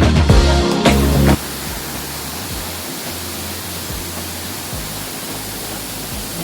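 Background music that cuts off suddenly about a second in, giving way to the steady rush of a waterfall.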